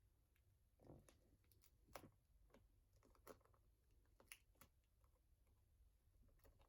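Near silence, with a few faint, sharp clicks and taps spaced about a second apart.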